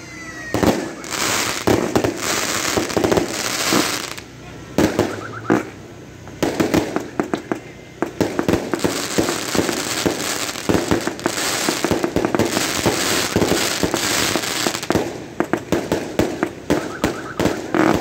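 Fireworks going off: bang after bang from aerial shells bursting, with a dense, rapid crackle of firecrackers from about six seconds in.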